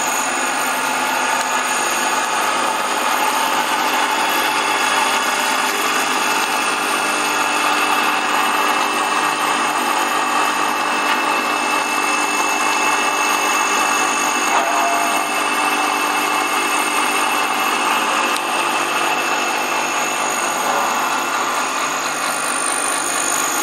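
Electric vertical colloid mill running steadily while grinding ginger into a fine paste: a continuous, even machine whine with several steady tones.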